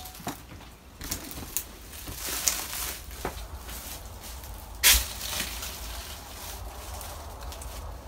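Scattered crunches, creaks and knocks of people moving through a decaying cabin, with one sharp, loud knock about five seconds in.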